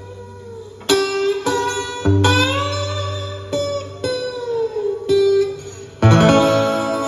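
Steel-string acoustic guitar played fingerstyle: separate picked notes, many bent up and down in pitch, then a louder, fuller chord struck about six seconds in.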